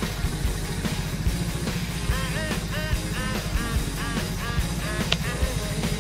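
Rock music with a fast, driving drum beat; a lead line of repeated bending notes plays in the middle.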